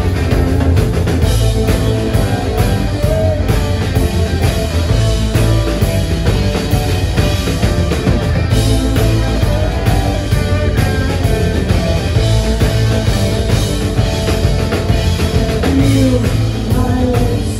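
Live rock band playing loudly: electric guitars, keyboard and drum kit together in a steady full-band groove.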